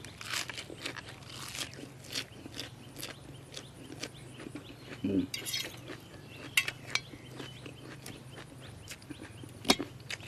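Close-up chewing and crunching of crunchy jellyfish salad eaten with raw vegetables, with scattered clicks and clinks of utensils.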